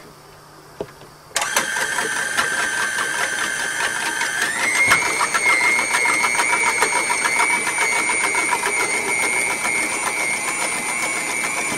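Electric stand mixer switched on about a second and a half in, its motor running with a steady whine that steps up in pitch a few seconds later and then holds. It is churning an ice cream mix being chilled with liquid nitrogen.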